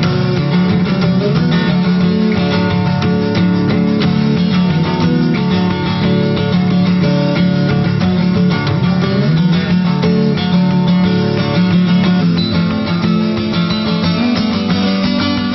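Background music: guitar playing, with strummed and plucked notes over a steady low line.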